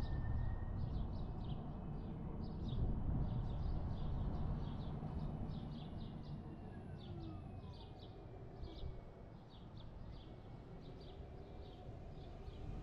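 Low road rumble of a car driving slowly, easing off as it slows toward a stop, with a small bird chirping over it, a few short chirps a second.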